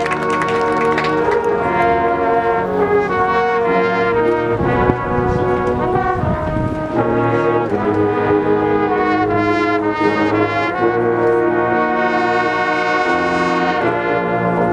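Marching band brass section playing loud held chords that shift every second or two.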